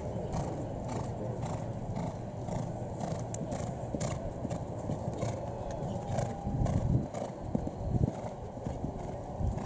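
Horse cantering on a dirt arena: hoofbeats in a steady rhythm, with a few louder swells of noise near the end.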